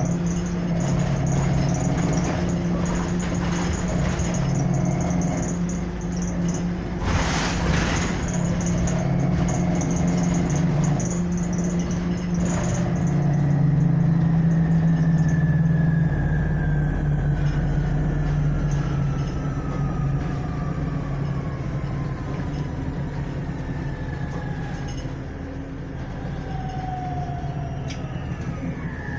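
Inside a city transit bus: the engine and drivetrain running with a steady low hum, with a short hiss about seven seconds in. From about halfway a whine falls slowly in pitch as the bus slows down.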